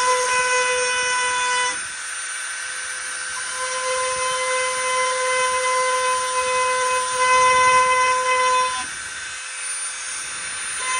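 Dremel rotary tool running at high speed, a steady high-pitched whine, as its bit grinds out a crack in a plastic motorcycle fairing. The whine drops in level about two seconds in and again near the end.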